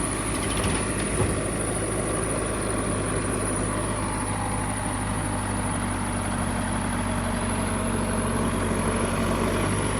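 Backhoe loader's diesel engine running steadily, with a brief metallic knock about a second in.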